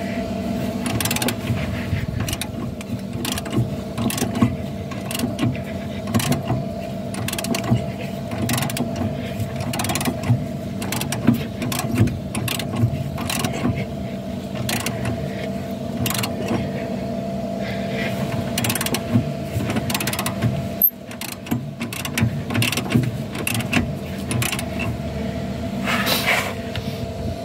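Ratchet spanner clicking irregularly as a loosened brake caliper bolt is wound out by hand, over a steady background hum.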